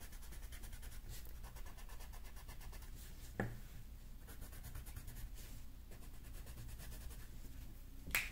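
Quick, even back-and-forth shading strokes of a colouring tool on paper, darkening shadowed parts of a drawn tree. Two sharp clicks cut in, about three seconds in and near the end.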